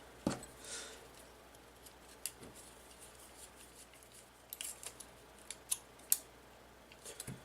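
Scattered light clicks and ticks of small tools and tiny drone parts being handled on a workbench, a dozen or so sharp little taps spread unevenly, with a brief soft rustle near the start.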